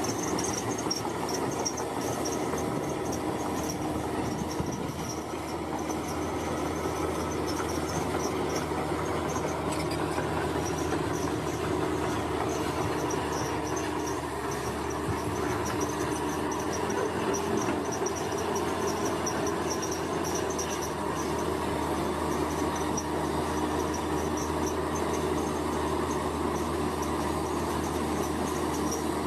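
Heavy road-construction machinery running steadily, a constant mechanical drone with a high pulsing chirr over it.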